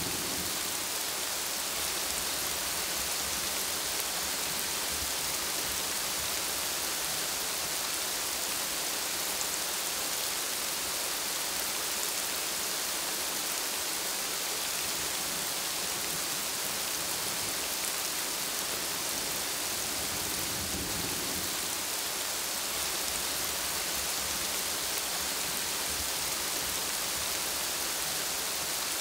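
Steady rain falling on broad plant leaves: an even, unbroken hiss, with a brief low rumble about two-thirds of the way through.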